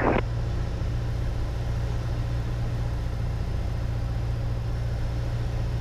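Steady drone of a Piper Warrior's four-cylinder Lycoming piston engine at reduced power on final approach, heard from inside the cockpit.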